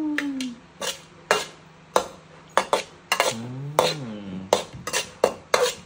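Metal spoon clinking and scraping against a metal wok while stirring fried crickets: a string of sharp, irregular strokes that come faster in the second half.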